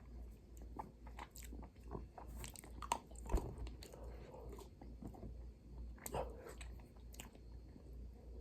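A person chewing a bite of almond chocolate bar, with soft irregular crunches and clicks of the nuts breaking between the teeth.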